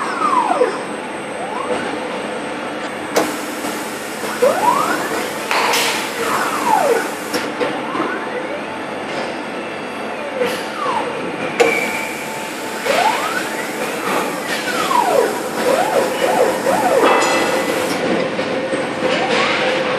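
CNC milling machine's axis drives and spindle whining up and down in pitch with each move of a slow automatic tool change. Several hisses a second or more long are heard among the moves.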